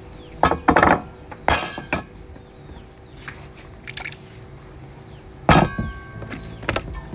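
A utensil knocking against a stainless steel bowl: a few sharp clinks in the first two seconds, then a louder knock about five and a half seconds in that rings on briefly.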